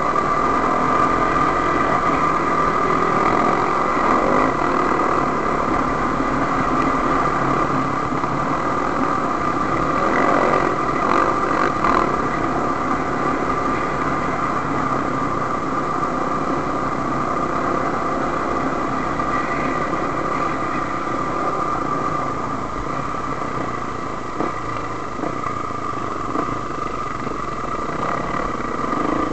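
Enduro dirt-bike engine running steadily under way on a rough dirt trail, heard from on board the bike.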